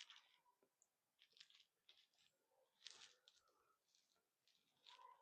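Near silence: quiet outdoor air with a few faint, short high-pitched chirps scattered through it.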